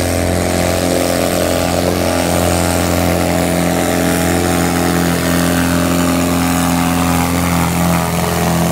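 Pulling tractor's diesel engine running flat out under heavy load as it drags a weight-transfer sled, a loud, steady drone that holds one pitch throughout.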